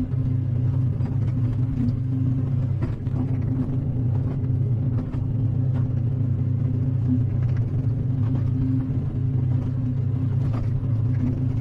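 Excavator engine running steadily while the machine levels soil, with a few faint knocks from the bucket working the dirt.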